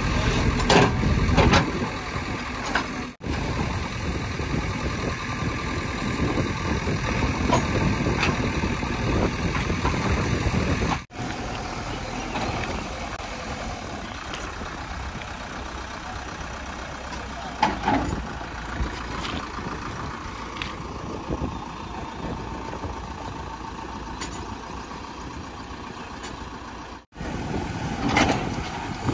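JCB 3DX backhoe loader's diesel engine running steadily, with sharp knocks from the digging bucket striking soil and ballast about a second in and a few more later.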